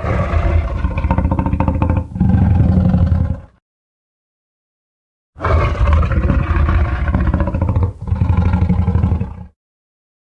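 Monster roar sound effect mixing the 2014 Godzilla roar with the Jurassic Park Tyrannosaurus rex roar, heard twice, each roar in two parts with a short break about two seconds in. The two roars are separated by about two seconds of silence.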